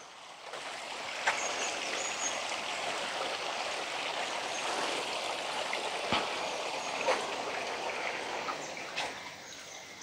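Shallow water flowing and trickling over stones in a small garden stream: a steady rushing hiss.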